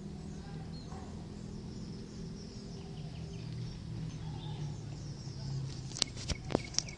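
Outdoor background noise with a steady low hum, and a few sharp clicks near the end.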